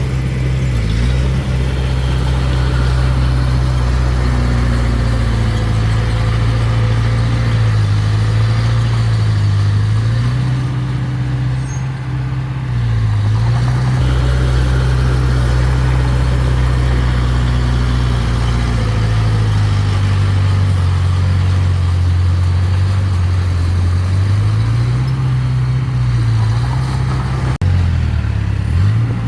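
Mini bulldozer's diesel engine running continuously, its low drone dipping in pitch several times and then recovering.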